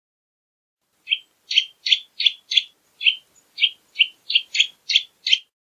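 Eurasian nutcracker calling: a quick series of about a dozen short, noisy calls, roughly three a second, starting about a second in.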